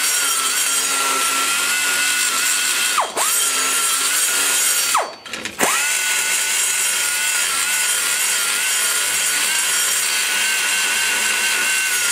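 Die grinder with a large egg-shaped burr cutting the port metal around a valve guide in a Chevy LT-1 cylinder head: a steady high whine over the hiss of cutting. The whine dips briefly about three seconds in, winds down and spins back up around five to six seconds in, then runs on steadily.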